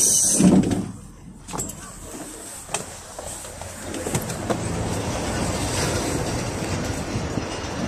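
A short loud hiss in the first second, then the PAZ 32053 bus's ZMZ-5234 V8 engine, running on liquefied petroleum gas, growing louder as the bus pulls away from the stop.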